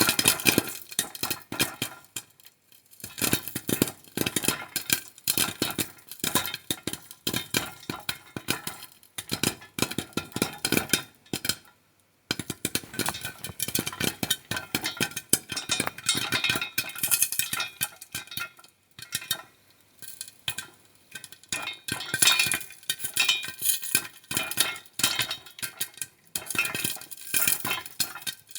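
Popcorn popping in a pan: a dense, irregular run of sharp pops, thinning briefly a few times before picking up again.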